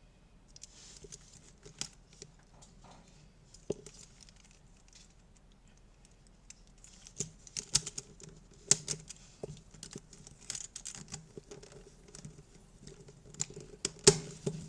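Plastic clicks and rattling of a GAN 356 RS 2 non-magnetic speedcube being turned by hand, a few turns at first and then quick, busy turning from about halfway through, with one sharp click near the end. The cube is fresh out of the box and turns sandy and a bit rough.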